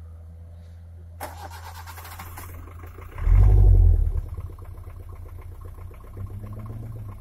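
Vehicle engines working under load as a pickup tows a small car uphill on a dirt track: a harsh, rapidly pulsing rev starting about a second in, then a loud low rumble around three seconds in, settling back to a lower engine hum.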